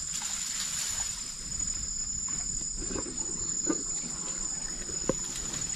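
Steady, high-pitched chorus of night insects, held on two even tones, with a few faint short knocks in the middle and near the end.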